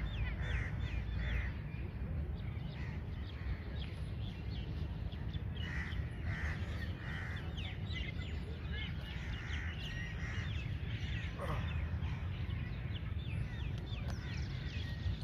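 Birds calling outdoors: short harsh calls in clusters of three or four every few seconds, over a constant twitter of quicker, higher chirps and a steady low rumble.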